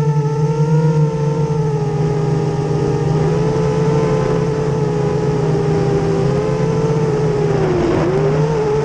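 Brushless motors and propellers of a 240 mm FPV racing quadcopter (Racerstar BR2205 2300KV motors) whining in flight. The pitch wavers with throttle and dips briefly near the end.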